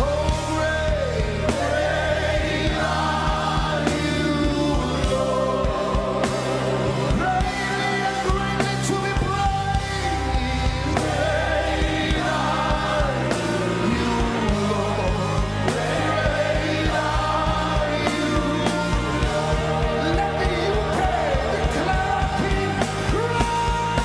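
Live gospel praise and worship music: a male lead singer with backing singers over a full band of keyboard, guitars and drums.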